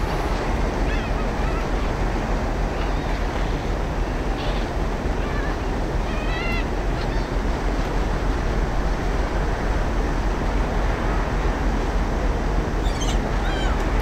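Seagulls calling now and then, a few calls around the middle and again near the end, over a steady rushing noise of wind and water.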